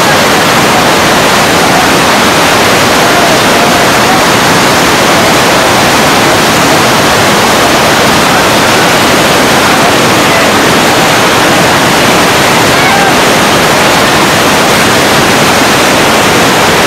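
Floodwater in a muddy torrent rushing through the arches of a masonry bridge: a loud, steady rush of water with no let-up.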